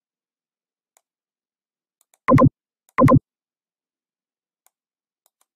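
Two short, loud electronic beeps, steady in pitch, about two-thirds of a second apart.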